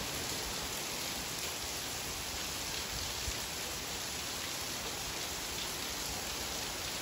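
Steady rain falling, an even hiss with no break.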